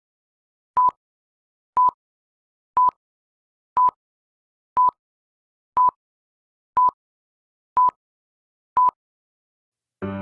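Film-leader countdown sound effect: a short, high, steady beep once every second, each with a faint click, nine in all. Soft music begins near the end.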